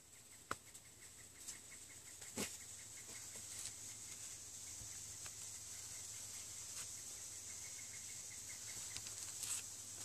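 A rag and work-gloved hands wiping down a glass wine bottle: faint rubbing with a few light knocks, about half a second in, at two and a half seconds and near the end, over a steady high-pitched hiss.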